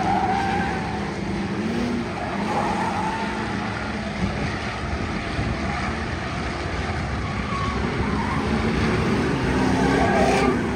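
Several race cars' engines running as they lap an oval track, a steady mix of engine noise whose pitches rise and fall a little as the cars accelerate and lift.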